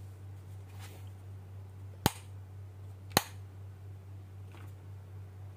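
Rocker power switch of an APC surge protector clicking: two loud, sharp clicks about a second apart, with fainter clicks before and after, over a steady low hum.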